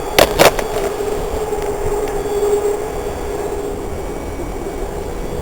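MTA Maryland Budd subway car running, heard from on board: a steady rumble with a steady mid-pitched whine. Near the start there are two sharp knocks about a quarter second apart.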